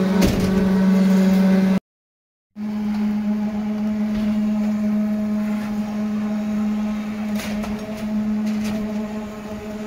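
Concrete-pouring machinery running with a loud, steady hum on one pitch. It cuts out completely for under a second about two seconds in, then carries on unchanged.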